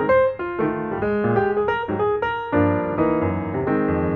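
Background piano music, a string of single notes that fills out into fuller chords with a bass line about two and a half seconds in.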